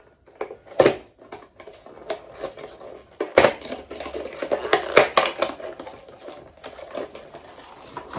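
Hands unpacking a boxed reed diffuser: rustling packaging and a few sharp knocks and clicks of hard objects. The loudest knocks come just under a second in, at about three and a half seconds and at five seconds, with busy crackling between them.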